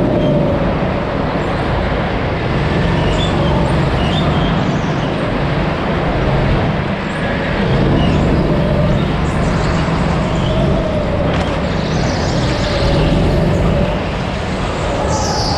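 Onboard sound of a rental go-kart engine running at speed, a steady drone whose loudness swells and dips every few seconds.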